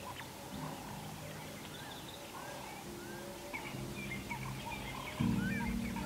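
Several wild birds calling, a busy mix of short chirps and quick rising whistles. A low hum runs under them and grows louder about five seconds in.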